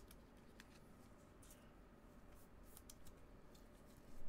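Near silence with faint, scattered light clicks and rustles of clear plastic card holders being handled, and a brief louder handling rustle near the end.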